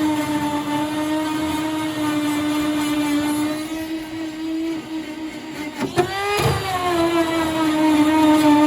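Handheld rotary tool running with a steady high whine as it cuts; about six seconds in it drops off briefly, then spins back up with a rising whine.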